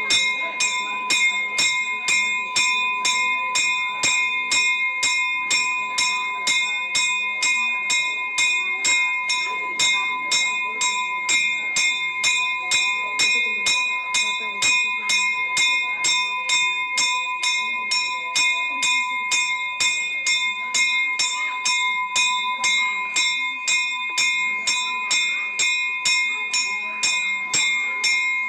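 Temple bell rung steadily and evenly, about three strokes a second, its ringing tones held without a break, as is done during the lamp-waving worship (aarti).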